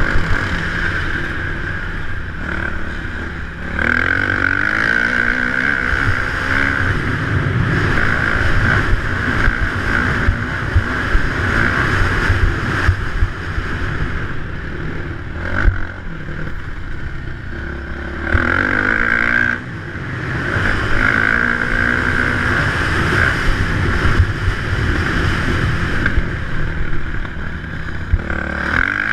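Dirt bike engine running hard around a motocross track, its pitch rising and falling over and over as the throttle opens and closes, with short drops in loudness about a third and two-thirds of the way through. Heard from a helmet-mounted camera.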